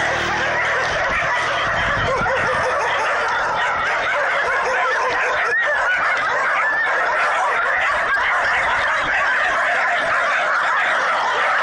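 Many dogs barking and yelping at once in a dense, continuous chorus: a pack of shelter dogs stirred up by a monkey.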